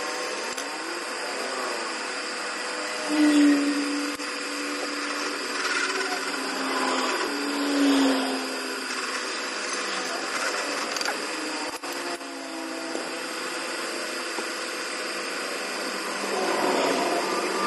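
Drill press running, its twist bit drilling through flat steel plate, with brief loud squeals about three and eight seconds in and a weaker one near twelve seconds.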